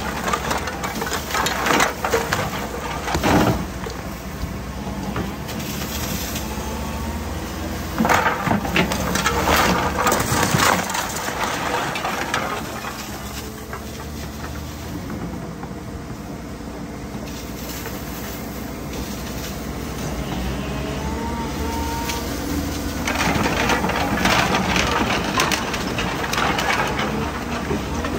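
Hyundai excavator demolishing a clay-tile-roofed house: its diesel engine runs steadily under load while the bucket crushes and breaks roof tiles, timber and masonry. The breaking comes as bursts of cracking, crumbling clatter at the start, around a third of the way in, and again in the last few seconds, with mostly engine running between.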